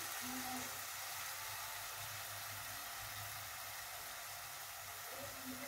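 Faint, steady sizzling hiss from a pan of diced raw banana and water heating on a gas burner.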